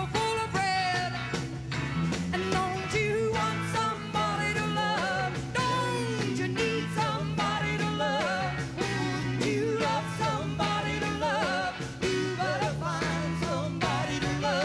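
A rock band playing live: sung vocals over electric guitar, a steady bass line and drums with a regular beat.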